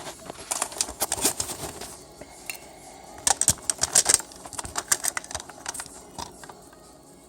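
Clattering knocks and clicks of a desktop PC case being lifted and handled, in two busy bursts that die down near the end.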